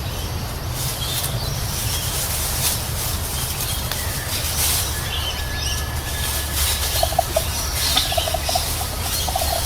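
A large fowl gives several quick rattling series of short calls in the last few seconds, over a steady low rumble.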